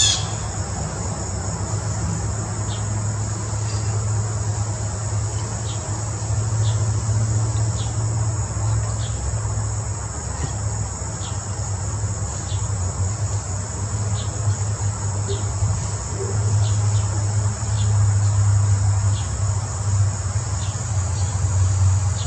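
Steady high-pitched insect chorus, like crickets, over a steady low hum, with short high chirps repeating roughly once a second.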